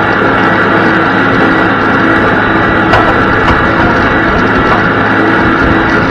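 Farm tractor running steadily under load as it pulls a field cultivator through the soil: a constant engine drone with a steady high whine.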